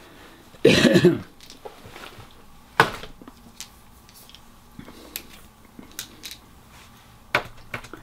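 A man coughs once, about a second in. Scattered small clicks and rustles follow as his hands handle a cloth item.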